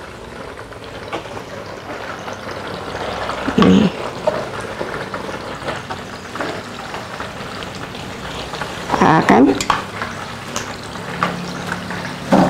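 Banana prawns frying in hot oil in a small frying pan, a steady sizzle as they are turned with tongs. Two brief louder noises stand out, about 4 and 9 seconds in.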